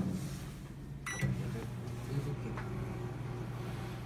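Commercial microwave oven: one short keypad beep about a second in as it is started, then the oven running with a steady low hum.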